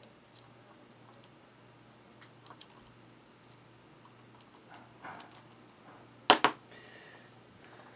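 Light clicks and taps of a small precision screwdriver turning a screw in a plastic mini-quadcopter frame, with two sharp, louder clacks about six seconds in. A faint steady low hum runs underneath.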